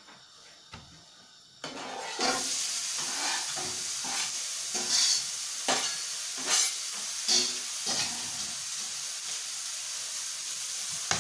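Sliced onions hitting hot oil in a wok and frying with a steady sizzle that starts suddenly a couple of seconds in, with several short louder scrapes as the onion is pushed off the chopping board with a knife.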